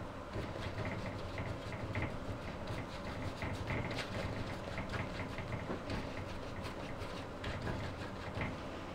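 A paintbrush dabbing and scrubbing oil paint onto a stretched canvas: irregular soft taps and scrapes, several a second, over a steady low hum.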